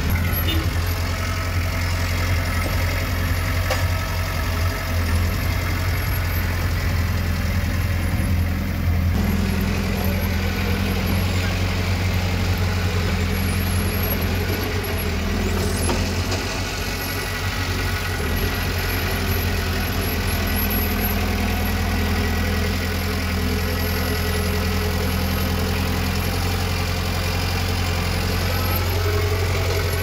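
Heavy-equipment diesel engine running steadily at an even speed.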